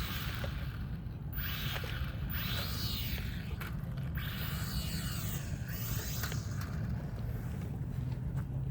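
Small electric motor of a remote-control toy whining, rising and falling in pitch twice as it is throttled up and down, over a steady low rumble.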